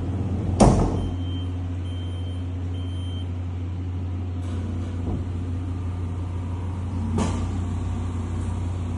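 Steady hum of a MACY-PAN hyperbaric chamber's machinery running. A sharp knock comes about half a second in and another about seven seconds in, with three short high beeps about one to three seconds in.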